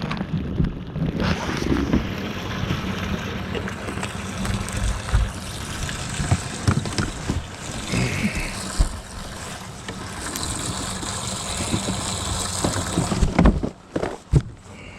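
Wind buffeting the microphone over the low hum of a boat, with scattered knocks and clatter. It drops away abruptly near the end.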